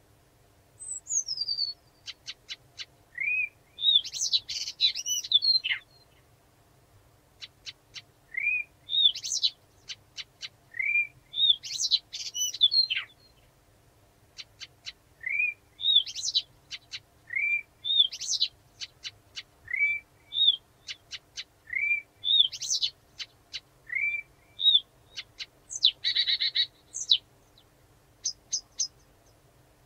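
Blyth's reed warbler singing a slow, measured song of repeated phrases. Each phrase mixes short dry clicks with upslurred and falling whistled notes, with brief pauses between phrases. A harsh buzzy note comes near the end.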